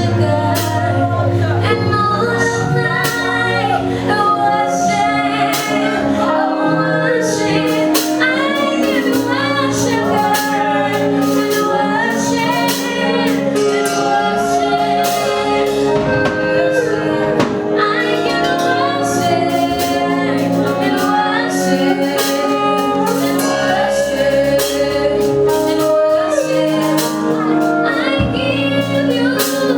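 Gospel worship song: a woman singing the lead melody over full band accompaniment with a steady beat and held chords.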